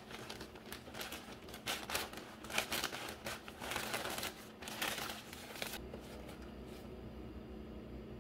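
Orange plastic poly mailer crinkling and rustling as it is handled open and a wrapped package is pulled out, in quick irregular spurts. The rustling stops a little after halfway, leaving a faint steady hiss.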